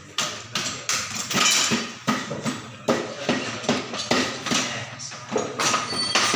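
Irregular metallic knocks and clinks, a few a second, from tools and engine parts being handled and tapped during hands-on work on a motorcycle engine.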